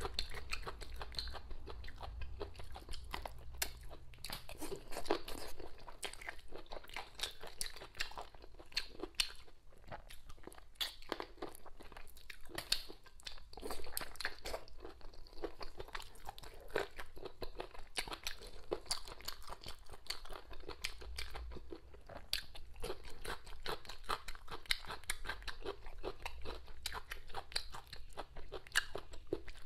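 A person chewing food close to a clip-on microphone: a continuous run of small crunching and mouth clicks.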